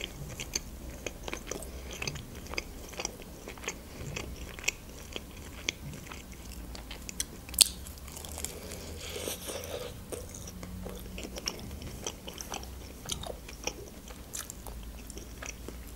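Close-miked eating of a homemade shawarma: chewing with wet mouth clicks and smacks, and a bite into the wrap about halfway through.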